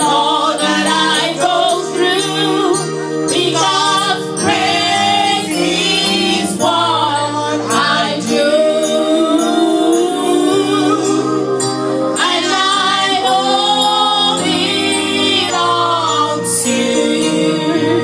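Gospel song sung live by women: a lead singer on a handheld microphone with a small group of women singing along, over a sustained instrumental backing whose low notes change in steps.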